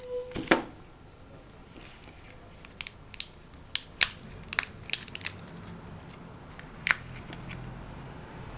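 Plastic clicks and taps from a Westclox Model 1818 battery digital alarm clock being handled and its buttons and switches worked: one louder click about half a second in, then a dozen or so sharper, separate clicks over the following seconds.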